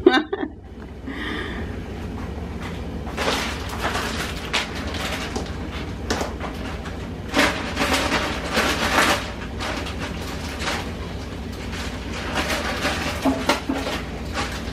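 Diced chicken sizzling in oil in a pan, a steady frying hiss over a low hum, with louder crackly rustling now and then.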